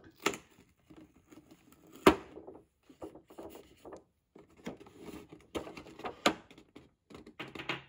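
Cardboard cake box being handled and opened: scattered sharp knocks and clicks with light rustling of the card, the loudest knock about two seconds in and two more near the six-second mark.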